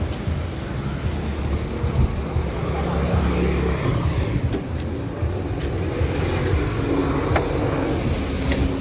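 A car's steady low rumble, with traffic-like noise over it.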